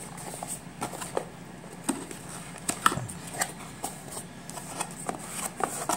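Scattered light clicks and ticks of hands handling a small plastic camera and its packaging.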